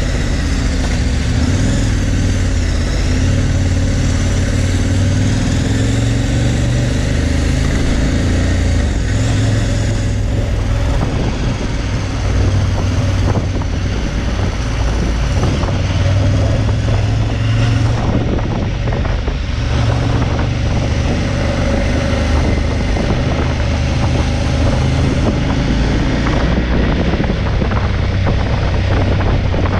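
KTM 1190 Adventure's V-twin engine running at low speed, its note rising and falling with small throttle changes. From about a third of the way in it turns rougher and noisier, with wind rushing over the microphone as the bike speeds up.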